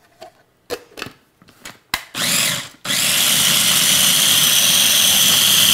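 Small electric food processor: a few clicks and knocks, then about three seconds in the motor starts and runs steadily with a high whine, puréeing a mango-ginger dressing.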